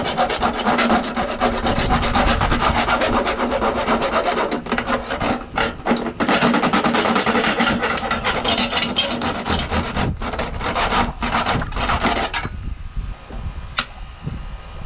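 Hand saw cutting through a downspout in quick back-and-forth strokes, stopping abruptly about twelve seconds in; a couple of light clicks follow near the end.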